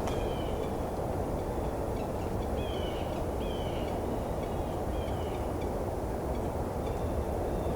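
Red-breasted nuthatches giving soft, short nasal contact calls, repeated about every half second to a second, over a steady low background rumble. These are the birds keeping in touch with each other while they forage.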